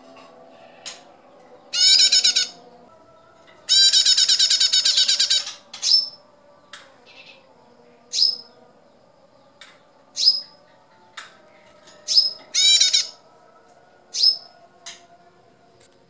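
Female prinia (prenjak) calling: two fast rattling trills in the first half, the second one longer, and a shorter trill near the end, with single sharp downslurred chirps about every two seconds in between.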